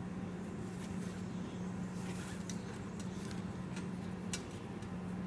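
Faint rustling and a few light ticks of nylon paracord being pulled and tucked into a cobra weave, the sharpest tick about four seconds in, over a steady low hum.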